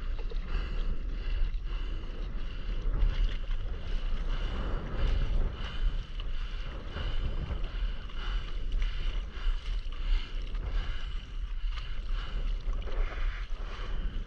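Wind buffeting the microphone with a constant low rumble, over small waves lapping and sloshing against a stand-up paddleboard on choppy sea.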